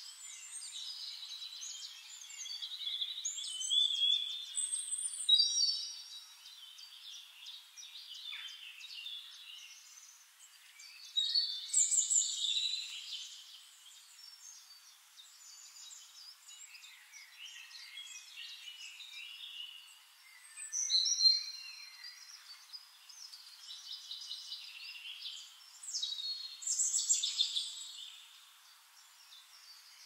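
Birds singing: a varied mix of chirps, trills and whistled phrases, with louder phrases rising out of it every several seconds.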